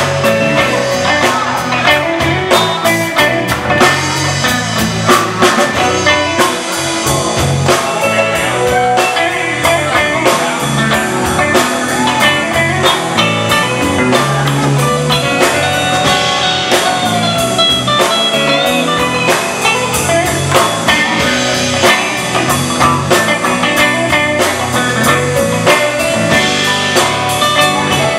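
Blues band playing, with electric guitar, electric bass and drum kit keeping a steady beat.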